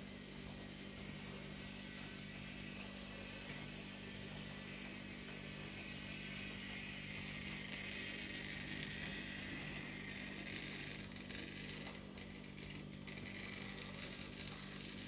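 Toy train running on its track: a steady small-motor hum with a higher whirr that swells in the middle and eases off again.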